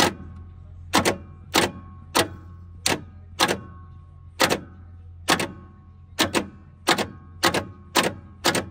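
Starter of a seized 1959 Chevy Biscayne engine being jumped with a screwdriver: repeated sharp metallic clunks, roughly one to two a second, each with a brief ring, and the engine does not turn over.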